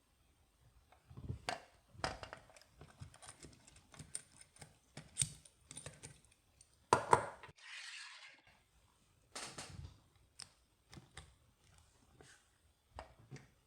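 Metal clicks, taps and rattles of a disc detainer pick working in a Kryptonite KryptoLok bike lock's disc detainer core, irregular and uneven in loudness, with the loudest knocks about seven seconds in followed by a brief scraping hiss.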